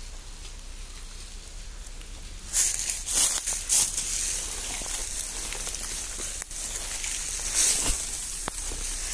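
Close rustling and scraping in bursts, one cluster a few seconds in and another near the end, with scattered faint clicks between: handling noise close to the microphone as the phone moves over rotting wood.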